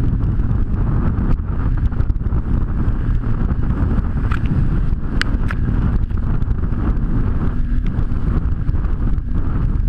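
Wind rushing over the microphone with the steady low drone of a jet ski's engine underneath, and a few sharp ticks near the middle.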